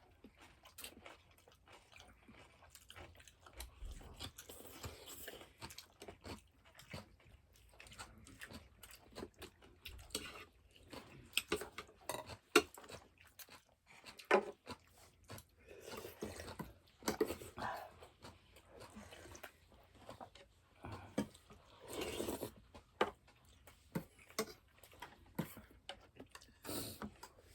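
A person chewing and crunching food during a meal, with irregular sharp clicks, the loudest about halfway through.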